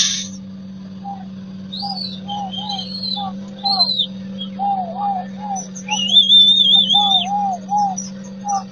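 Birds calling and chirping: repeated short arched calls with higher warbling phrases, the loudest a wavering trill a little past the middle. Under them runs a steady low hum, with a sharp click right at the start.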